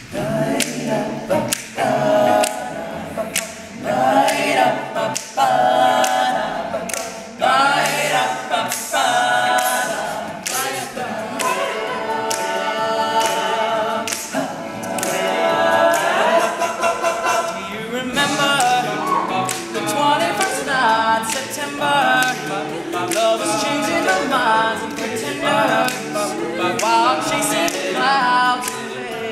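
All-male a cappella group singing in harmony, voices only with no instruments.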